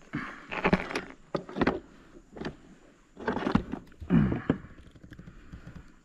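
Irregular knocks and rattles of fishing gear being handled on a plastic kayak, several short clusters about a second apart, the loudest near the end.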